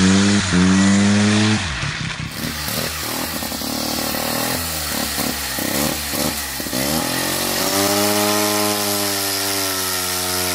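A small single-rotor Wankel engine in a go-kart running at a steady high speed. About two seconds in the sound switches to a single-rotor Wankel chainsaw revving up and down unevenly. From about eight seconds it holds a steady high speed as it cuts through a log.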